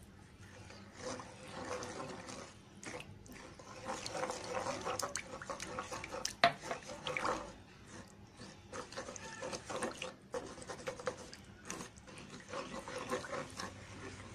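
Coconut milk poured into a nonstick pan, then a wooden spatula stirring and scraping through the liquid, with sloshing and rubbing against the pan. A single sharp knock about six seconds in is the loudest sound.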